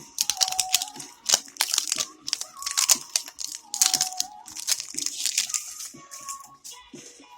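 Packaging wrapper being crinkled and torn open by hand while unwrapping a surprise toy: dense, irregular crackling with sharp ticks. Faint background music with held notes plays underneath.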